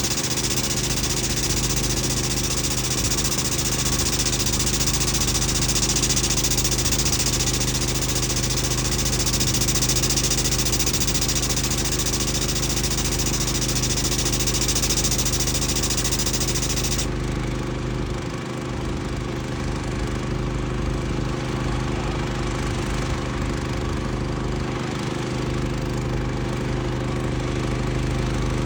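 Engine idling steadily, with a loud high hiss over it that cuts off abruptly about two-thirds of the way through.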